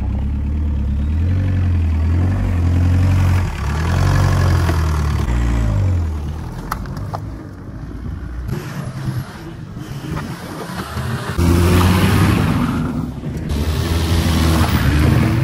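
Stock-car engines revving on a dirt track, the pitch rising and falling again and again. The sound drops back for a few seconds in the middle, then an engine comes in loud again as a car drives close by.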